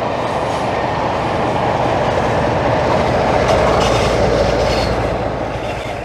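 Train of coaches running past on the rails with wheel clatter, shoved up the gradient by a diesel locomotive working hard at the rear. A low engine rumble swells about three seconds in, then the whole sound fades away.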